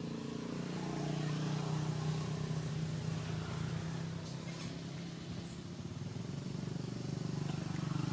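A motor vehicle engine idling steadily with a low, even hum.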